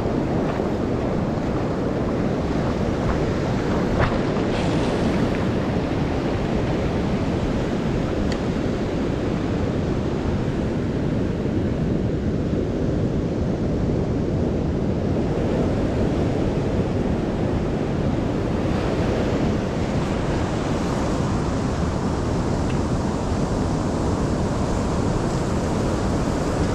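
Steady wash of ocean surf with wind buffeting the microphone, and a brief sharp tap about four seconds in.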